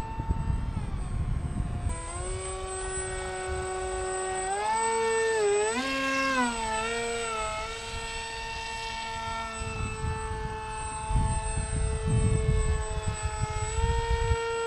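Whine of a small electric RC plane motor and propeller in flight, changing pitch with throttle and distance: it steps up about two seconds in and rises and falls around five to seven seconds as the foam jet passes low and close. Wind rumbles on the microphone at the start and again near the end.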